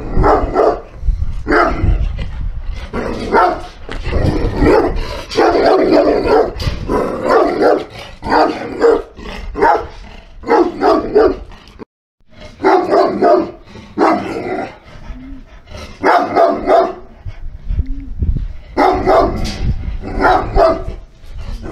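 Šarplaninac (Yugoslavian Shepherd Dog) barking over and over, with a brief break about halfway through.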